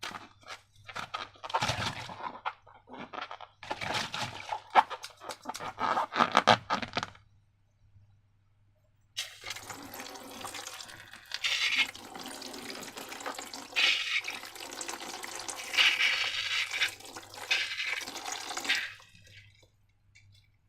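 Wet slime and liquid sounds: about seven seconds of short, sticky crackles and squelches, then, after a short pause, about ten seconds of continuous wet gushing that swells several times, like liquid slime being poured or squeezed out.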